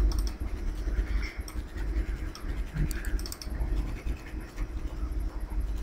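A few faint computer mouse and keyboard clicks over a steady low rumble from the microphone.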